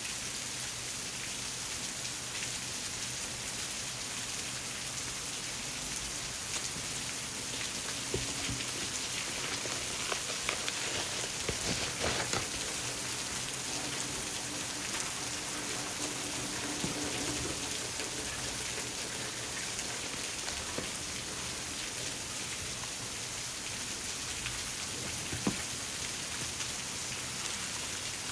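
Steady, even hiss throughout, with scattered crinkles and taps from handling a kraft cardboard mailer box and its shredded-paper filling, busiest from about eight to eighteen seconds in, and one sharp tap near the end.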